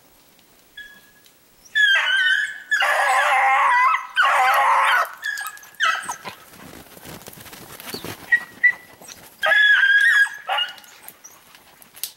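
Beagles baying on a hare's scent, several voices overlapping in broken bursts. The loudest run comes from about two to five seconds in, with short yelps after it and another burst near the end.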